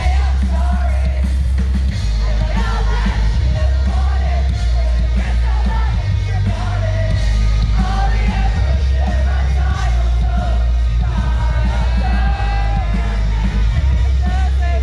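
Live rock band playing loudly over a festival PA, a singer singing and shouting over a heavy, steady bass.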